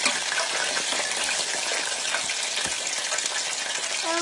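Hot oil steadily sizzling and crackling in a deep fryer as food fries in the basket.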